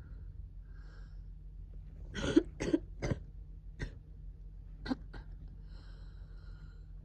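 A person with a cold coughing: a quick run of three coughs about two seconds in, then a few shorter single coughs.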